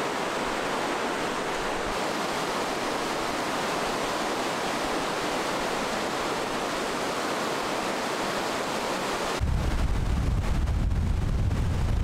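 Steady rush of fast-flowing river water. About three-quarters of the way through it cuts abruptly to wind buffeting the microphone, a heavy low rumble.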